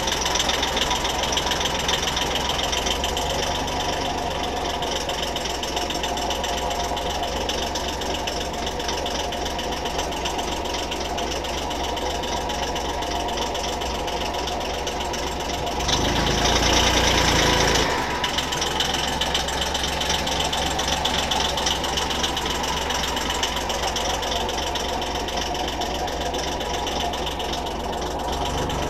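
A pompong boat's engine running steadily under way, with a fast, even beat. A little past halfway, a louder stretch lasts about two seconds.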